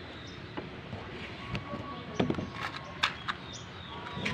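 Metal cooking pot set down and settled onto the iron grate of a two-burner gas stove: a few light, separate knocks over steady outdoor background.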